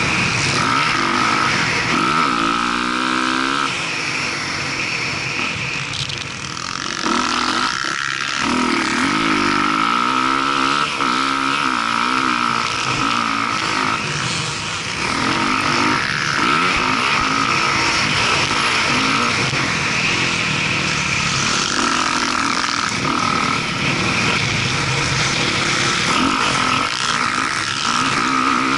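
Motocross dirt bike engine heard close up from on board, its pitch climbing and dropping again and again as the rider opens and closes the throttle and shifts gears, over a steady rush of noise. It eases off briefly about six seconds in.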